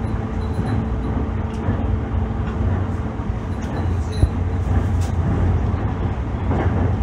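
JR East E531-series electric multiple unit running, heard from inside the passenger car: a steady low rumble of wheels on rail, with a single sharp knock about four seconds in.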